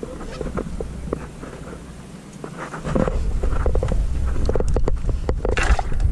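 Wind buffeting the microphone, picking up sharply about halfway through, with small clicks and rustles from hands handling fishing line, bait and rod.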